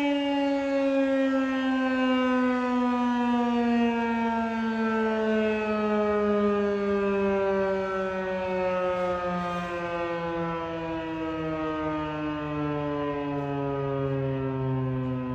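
Federal Signal 2001-130 single-tone electromechanical outdoor warning siren winding down at the end of its one-minute alert test. Its steady wail slides slowly lower in pitch as the rotor loses speed.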